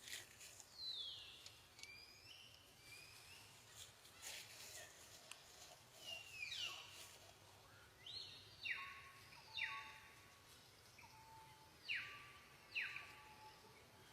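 A run of short, shrill animal calls, each sliding down in pitch, coming about once a second and loudest in the second half.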